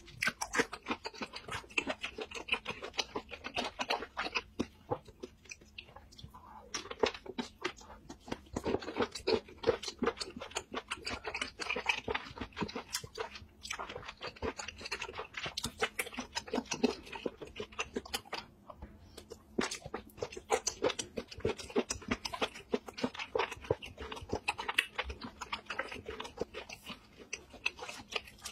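A person chewing mouthfuls of sauced seafood, a dense run of wet mouth clicks that pauses briefly a few times.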